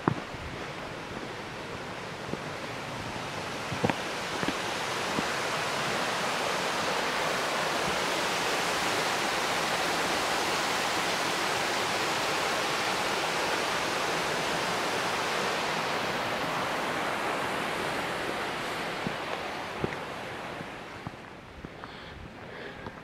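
Steady rushing of falling water, swelling louder over the first several seconds, holding, then fading away near the end, with a few faint clicks.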